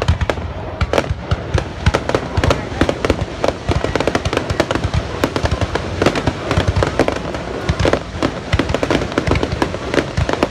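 A dense barrage of New Year fireworks going off, many sharp bangs and cracks a second without a break.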